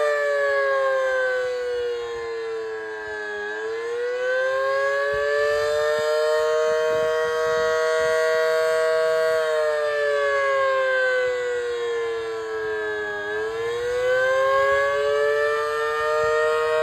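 Federal Sign and Signal Model 5BT outdoor warning siren sounding the attack signal. Its two-note chord slowly falls in pitch, rises back up and holds, then falls and rises again, a wail cycle of about ten seconds.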